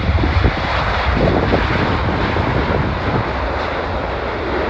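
Boeing 787's twin turbofan engines at takeoff thrust as the airliner speeds down the runway: a loud, steady rush of jet noise over a deep rumble.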